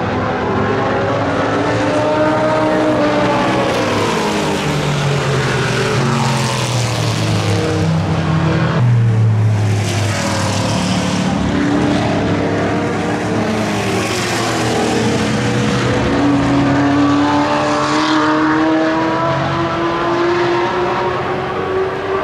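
Several historic racing cars' engines passing one after another on the circuit, overlapping. Their pitch rises and falls as they accelerate, change gear and go by.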